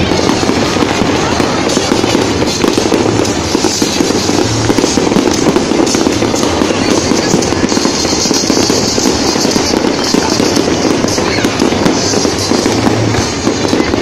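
Aerial fireworks display going off continuously: a dense run of bangs and crackling bursts with no pause.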